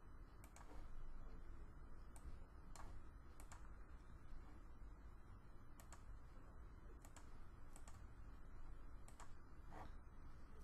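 Faint computer mouse clicks, about ten, scattered irregularly and some in quick pairs, over a steady low hum of room tone.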